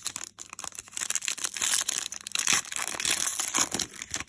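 Foil trading-card pack wrapper crinkling and tearing as a Donruss football pack is ripped open, a dense run of crackles loudest in the middle.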